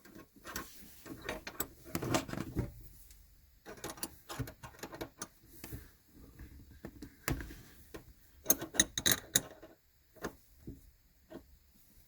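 Irregular metallic clicks and knocks from a Lotus Elise/Exige gear shifter linkage being adjusted and worked by hand, with a quick run of sharp clicks a little past the middle.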